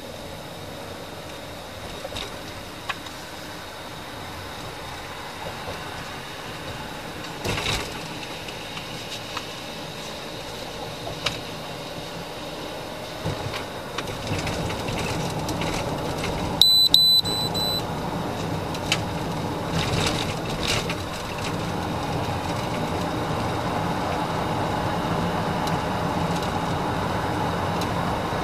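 Road and engine noise inside a moving police car, growing steadily louder as the car picks up speed on the open road. About two-thirds of the way through, a high electronic beep sounds for about a second while the road noise briefly drops out; it is the loudest sound here.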